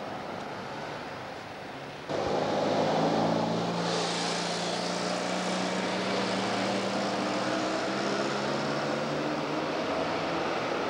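Street traffic: a motor vehicle's engine drones with a slowly falling pitch over a steady traffic din. It cuts in suddenly about two seconds in over a quieter background hum, and a brief hiss rises around the middle.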